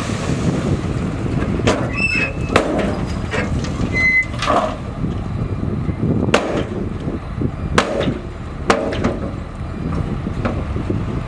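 Crawler bulldozer's diesel engine running under load, with the steel tracks clanking several times and squealing briefly about two and four seconds in.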